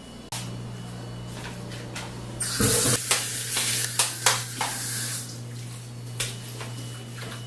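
Brastemp 12-place-setting dishwasher running: its motor switches on with a steady hum about a third of a second in. Water sprays and splashes inside, loudest a couple of seconds in, with sharp spatters among it.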